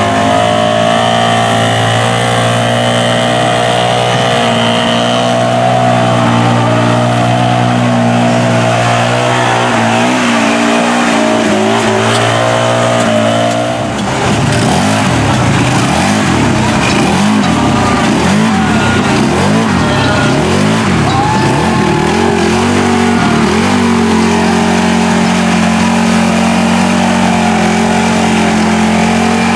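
Tractor-tire mud truck's engine running hard and steady, then from about halfway in revving up and down in repeated surges as the truck churns through the mud pit, settling back to a steady high pitch near the end.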